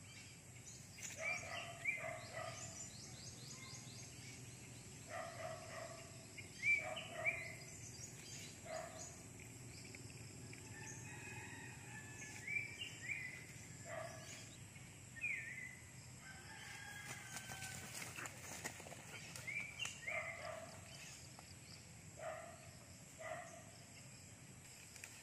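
Birds calling outdoors: short pitched call notes, often in quick pairs, repeating every second or two over a faint steady background hum and hiss.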